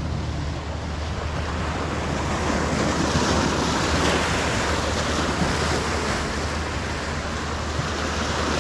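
Sea surf washing steadily on the shore, one wash swelling a little louder about three seconds in, with wind rumbling on the microphone.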